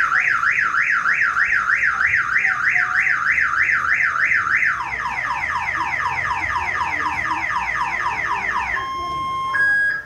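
Car alarm siren going off, cycling through its patterns: a fast up-and-down wail at about three sweeps a second, then about five seconds in a quicker falling whoop at about four a second, then steady beeping tones near the end before it stops.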